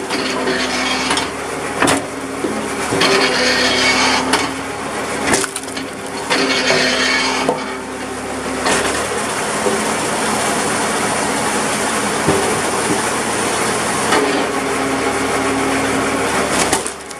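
Tractor engine running steadily to drive the splitter's PTO hydraulic pump, while oak rounds crack and split apart against the wedge several times, with splintering crackle and pieces knocking on the beam.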